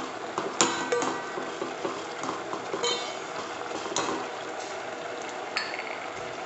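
Steel ladle stirring a simmering curry in a stainless steel pot, scraping through it with several sharp clinks of metal against the pot, over a steady hiss.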